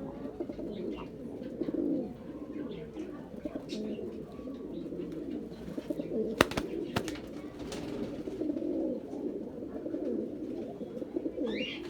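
Domestic pigeons cooing continuously, with a couple of sharp clicks about six and a half and seven seconds in.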